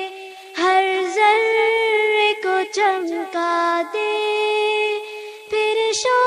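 Background music: a high voice singing unaccompanied, holding long notes in phrases with short breaks between them.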